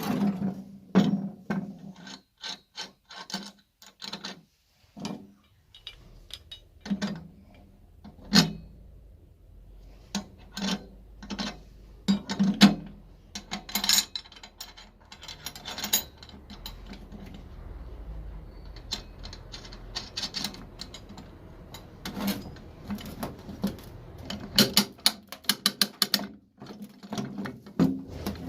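Winch parts being handled and worked loose during disassembly: a long run of irregular metallic clicks, knocks and ratcheting sounds, with a faint low hum under the middle stretch.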